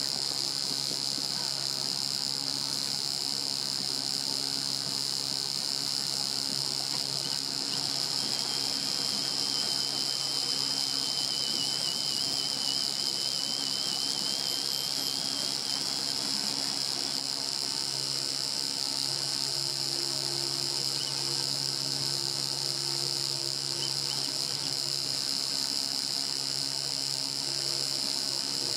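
A steady high-pitched buzzing drone, insect-like, with a faint low hum beneath it; it holds the same level throughout.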